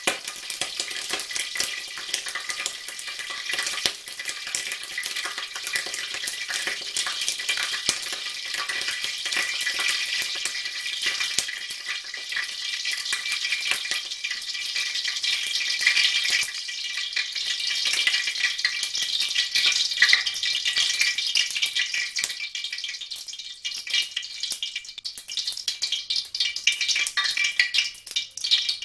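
A little water in hot oil in a wok over low heat, sizzling and crackling in a dense stream. The crackle thins to separate pops near the end as the water boils off.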